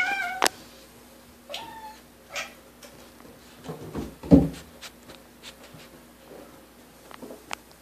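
Bengal kitten meowing in a small plastic shower stall: three short meows in the first two and a half seconds, then a louder low thump about four seconds in, with faint ticks scattered around them.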